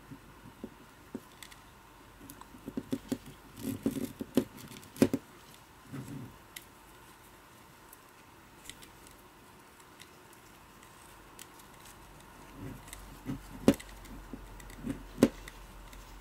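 Camera neck strap being threaded through the camera's strap lug by hand: soft rustling of the nylon webbing with scattered small clicks and taps. The handling comes in two busy spells with a quieter lull between.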